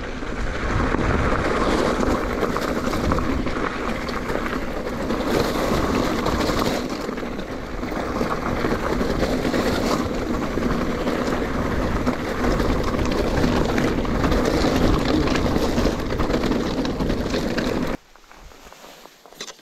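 Wind rushing over the microphone and rolling rumble from a mountain bike moving fast along a trail. The noise stops abruptly near the end.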